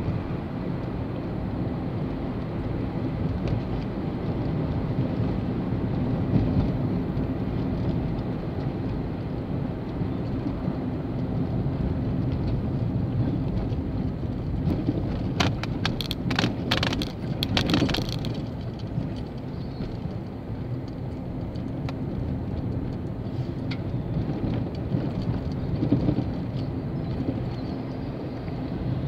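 Car being driven at low speed, heard from inside the cabin: a steady low rumble of engine and tyres, with a short run of sharp clicks or rattles about halfway through.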